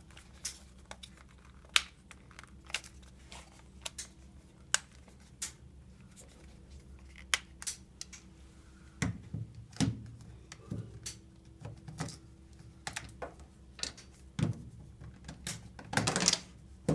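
Irregular sharp plastic clicks and scrapes as a flathead screwdriver pries the snap-on plastic end cap off a Maxtor OneTouch III Mini external hard drive case. A few heavier knocks come about nine seconds in, and a louder clatter of knocks and scraping near the end.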